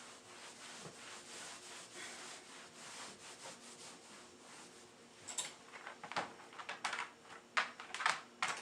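Hand scrubbing with a cleaning rag, repeated rubbing strokes, then several sharp knocks and clatters in the last few seconds.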